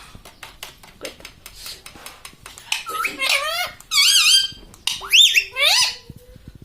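Pet parrot vocalising: a run of soft irregular clicks, then from about three seconds in several loud warbling calls that swoop up and down in pitch.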